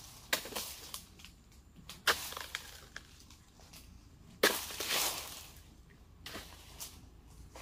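A dodos, a chisel blade on a long pole, chopping into the base of oil palm fronds: sharp cutting hits about every two seconds. The loudest comes about halfway through and trails off over about a second.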